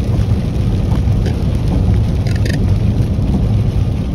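Steady low rumble of a vehicle's engine and tyres on a wet highway, heard from inside the cab while driving in rain, with a brief higher-pitched sound about two and a half seconds in.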